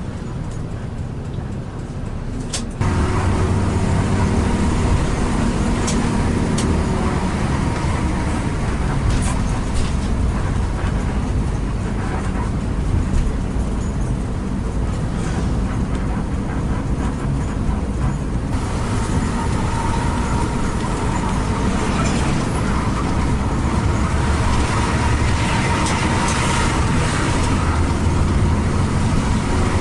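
Mercedes-Benz intercity coach bus running on the highway: a steady drone of engine and road noise. It gets suddenly louder about three seconds in, and a few light clicks are heard.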